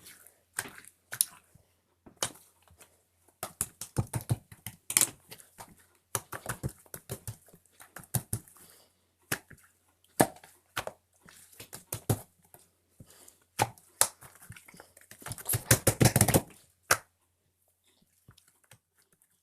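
Irregular clicking and tapping in quick clusters, the densest and loudest run about sixteen seconds in, then stopping.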